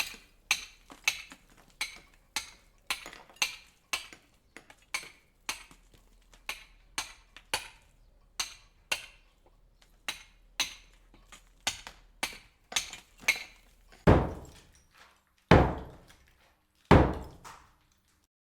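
Hammer blows: a steady run of sharp strikes at about two a second, followed near the end by three louder, heavier thuds spaced about a second and a half apart.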